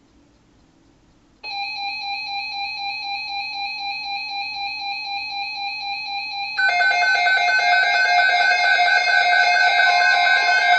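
Weather radio receivers sounding electronic alert tones for a severe thunderstorm watch: after a faint hiss, a steady, slightly pulsing high tone starts about a second and a half in, and a second, louder set of tones joins about five seconds later.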